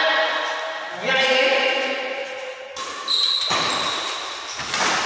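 Badminton rally on an indoor court. People talk for the first half; then a shoe squeaks briefly on the court floor and two sharp racket strikes on the shuttlecock come about a second and a half apart, ringing in the hall.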